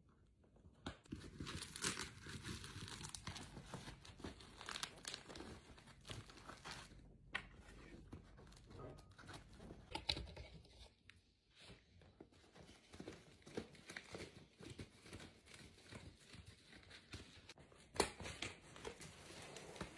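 A shipping package being opened by hand: packaging tearing, rustling and crinkling in irregular spurts, with small clicks and one sharp knock near the end.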